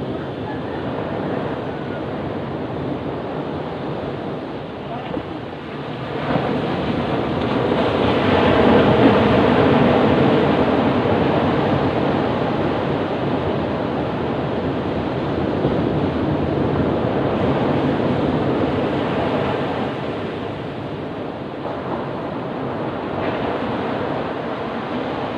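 Ocean surf breaking on a beach, a continuous rush of wave noise. It swells about six seconds in, is loudest around nine seconds, then slowly subsides.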